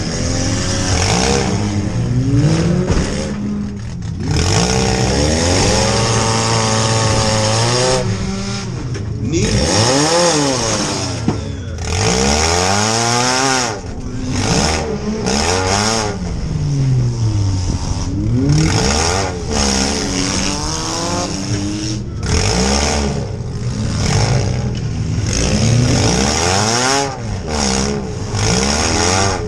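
Demolition-derby compact car's engine, heard from inside the stripped cabin, revving hard and easing off again and again, its pitch climbing and falling many times as the car drives and backs up.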